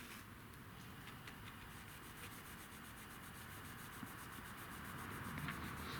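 Faint rubbing of an applicator working Turtle Wax Scratch Repair & Renew compound back and forth over scratched car paintwork, growing a little louder near the end.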